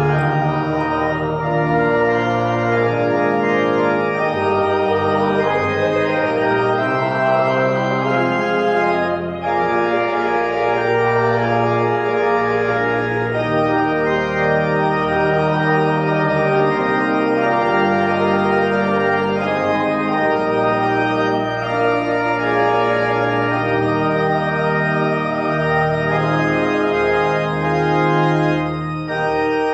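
Organ playing slow, held chords over a moving bass line, with a brief pause between phrases about nine seconds in.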